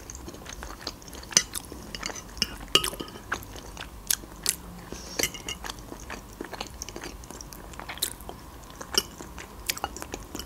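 A person chewing a mouthful of baked casserole, with many irregular sharp wet mouth clicks and smacks.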